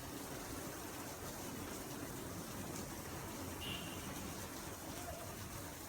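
Heavy rain falling as a steady hiss.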